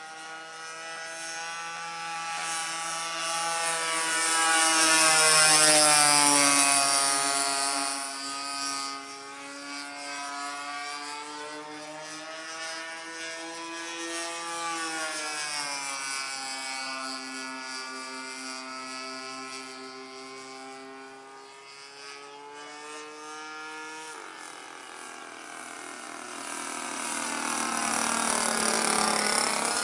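Evolution 20cc GX2 gas engine with a 15x6 propeller droning as a Hangar 9 Ultra Stick RC plane flies past. The drone rises and falls in pitch and loudness and is loudest about five seconds in and again near the end.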